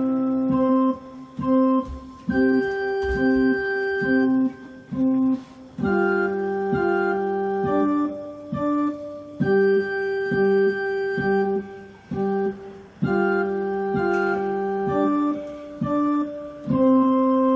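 Digital piano switched to an organ voice, played by a beginner: a simple two-hand children's piece in steady held notes, with a repeated low note under the melody. Each note is held for its full length, with short breaks between phrases.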